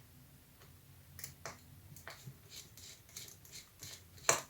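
Light clicks and taps of small tools and parts being handled on an open laptop during disassembly, with one sharper click a little over four seconds in.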